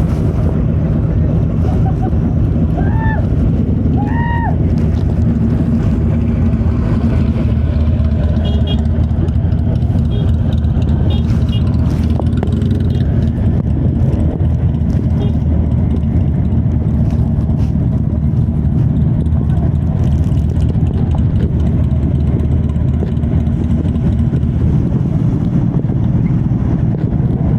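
2018 Kawasaki Z900's inline-four engine running through an aftermarket Yoshimura muffler and Delkevic headers with the dB killer removed, heard from the bike while riding at a fairly steady engine speed.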